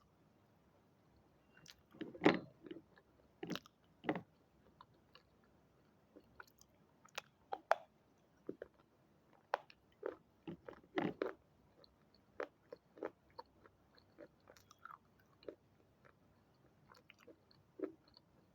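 Close-up crunching: a person biting into and chewing hard red triangle-shaped pieces, in irregular sharp crunches with the loudest bite about two seconds in.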